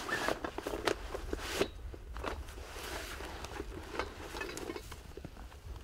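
Irregular crunching and rustling with scattered small clicks and knocks, as of someone moving about on foot and handling camping gear, over a low steady rumble.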